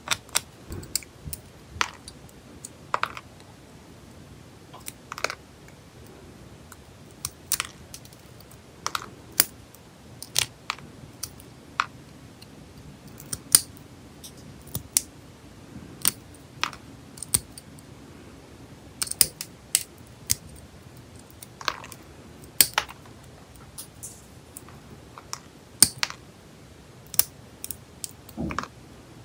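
Sharp, irregular clicks and snaps of metal nail nippers cutting through gel nail extensions and popping rhinestones and nail parts off the nails, roughly one snip every second or so.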